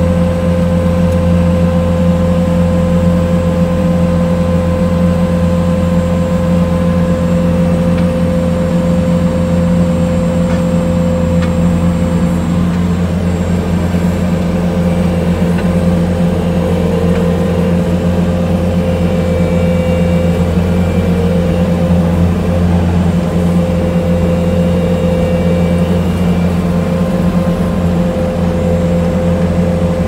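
Bobcat skid steer's diesel engine running at a steady pitch while driving its hydraulic auger attachment, which is boring a fence-post hole in sandy soil; heard from inside the operator's cab.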